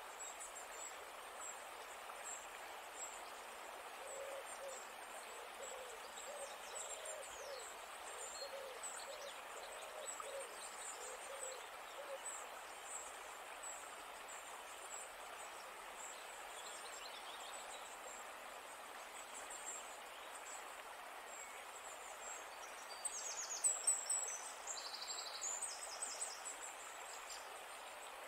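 Nature ambience: a steady hiss with faint high chirps, and a run of repeated low owl-like hoots, about one and a half a second, for several seconds from about four seconds in. Near the end comes a louder burst of high chirps and trills, the loudest sound in the stretch.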